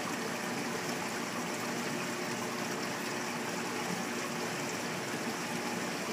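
Steady rush and trickle of circulating water in a saltwater aquarium, with a faint steady hum underneath.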